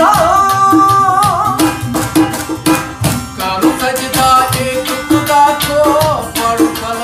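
Background music: a wavering sung melody over plucked strings and a steady drum beat.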